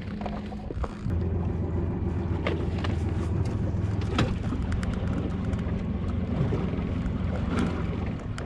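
Boat engine running steadily with a low hum; about a second in its note drops lower and gets louder. A few light clicks and knocks from handling gear on deck.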